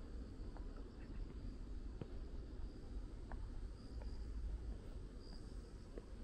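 Crickets chirping in a steady high pulsing chorus over a low rumble, with a few faint ticks scattered through.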